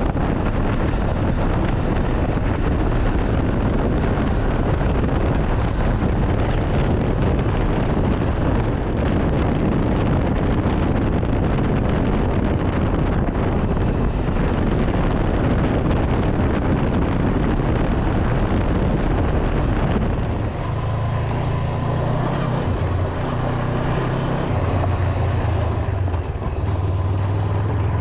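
Honda CB500X motorcycle under way, its 471 cc parallel-twin engine running under heavy wind rush on the microphone. About twenty seconds in the wind noise drops away and the engine's steady low drone comes forward.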